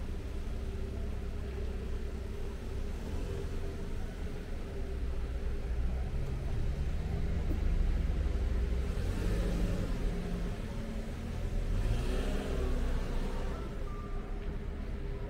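Street traffic: a car engine rumbling, then pulling away with a rising engine note, followed by the hiss of passing vehicles that swells and fades.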